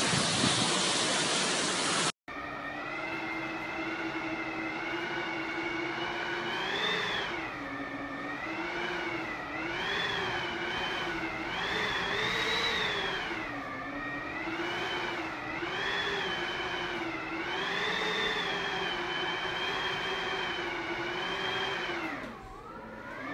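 Hurricane wind whistling and howling through the gaps around a closed door: one continuous pitched howl whose pitch rises and falls with the gusts and sags near the end. It is preceded by about two seconds of rushing wind and rain that cut off abruptly.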